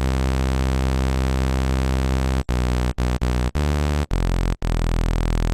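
Raw sawtooth tone from a single oscillator of Ableton Operator's synthesizer (Saw D waveform, all harmonics at equal level), held steady on one note, then replayed about halfway through as a run of short notes at changing pitches. This is the plain, undetuned saw that forms the first layer of a supersaw lead.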